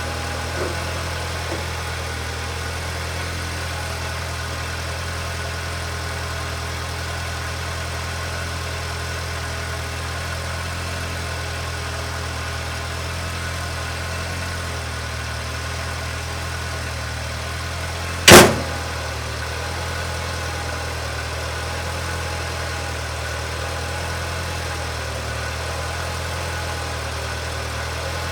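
Kawasaki Ridge side-by-side's 999 cc inline-four engine idling steadily, with a sharp loud knock about two-thirds of the way through and a couple of light clicks near the start.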